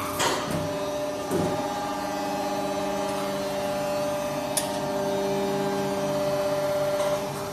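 Die casting machine running: its electric motor and hydraulic pump give a steady hum of several held tones. A short hiss comes just after the start and again about a second and a half in, and there is a sharp click about four and a half seconds in.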